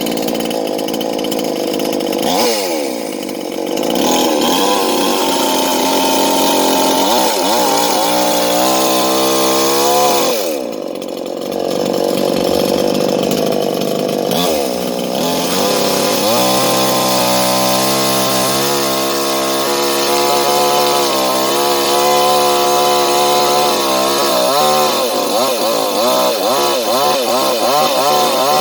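J.L.D. two-stroke petrol chainsaw engine running and being revved up and down. The revs fall back several times, about two seconds in, around ten seconds in and near fifteen seconds in, each time climbing again. From about sixteen seconds in it is held at high revs with a slightly wavering note.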